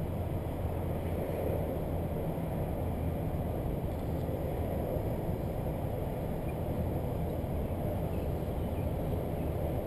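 Car engine idling steadily, heard through a camera mounted on the hood: a constant low hum with no change in pitch.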